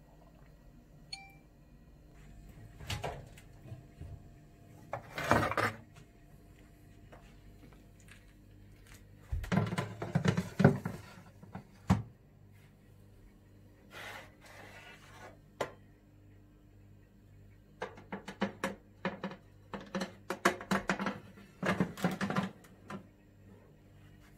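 Oven door being opened and metal baking trays on the oven racks being handled, clattering in several short bursts of knocks and scrapes.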